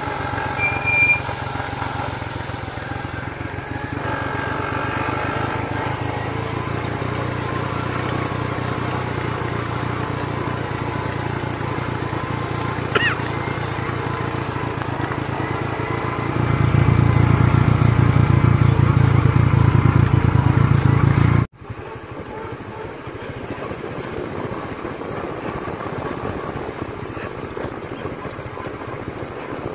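A vehicle engine running steadily while travelling along a road. It grows louder for several seconds past the middle, then cuts abruptly to a quieter engine sound about two-thirds of the way through.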